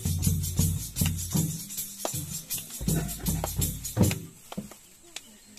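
Folk drum and jingling percussion playing a fast rhythm for a welcome song, with deep drum thuds under bright jingles. The music stops about four seconds in.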